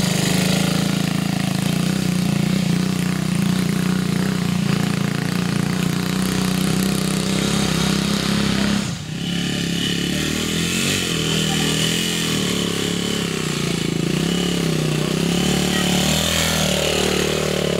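Trials motorcycle engines running steadily at low revs as the bikes are ridden slowly over rough ground. About halfway through the sound dips briefly and a second bike takes over.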